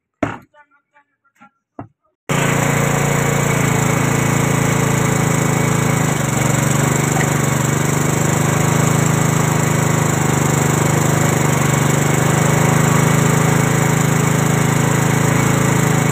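A few sharp chops of a blade through meat onto a wooden chopping block, then, about two seconds in, a small stationary engine cuts in, running steadily as it belt-drives a meat mincer.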